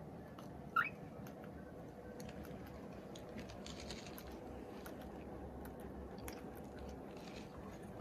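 Cockatiel cracking and nibbling seeds at a seed feeder: many small, irregular clicks. A short rising cockatiel chirp about a second in is the loudest sound.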